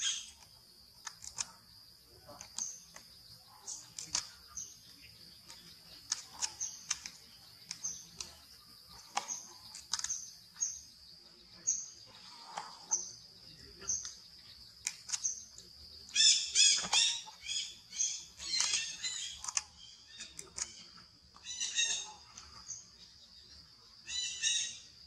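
A baby macaque screaming in loud, shrill bursts, over and over through the second half and again near the end, while being grabbed and handled by a bigger monkey. Behind it run a steady high insect drone and a high chirp repeating about once a second.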